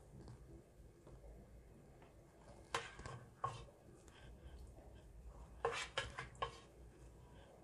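A black slotted serving spoon knocking and scraping against cooking pots as chicken gravy is scooped out and spread over rice: a few sharp taps about three seconds in and a quick cluster of clicks near six seconds.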